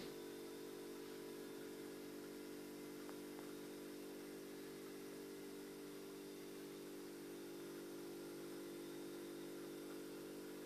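A steady low hum made of several close-pitched tones, unchanging in pitch and level.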